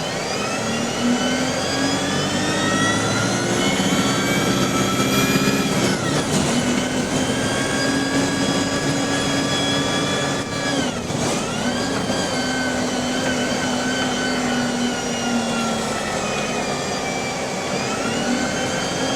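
Bus engine and Voith automatic gearbox whining as the bus accelerates, the pitch rising for several seconds before dropping at an upshift about six seconds in. It then holds steady, dips sharply and picks up again around eleven seconds, eases off near the end and starts rising again.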